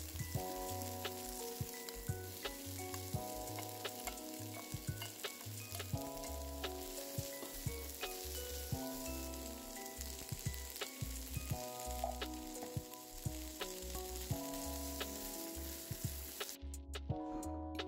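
Vegetables sizzling in a frying pan as they are stir-fried and turned with wooden chopsticks, with scattered light clicks. Background music with sustained notes and a steady bass plays underneath. The sizzle cuts off about a second before the end.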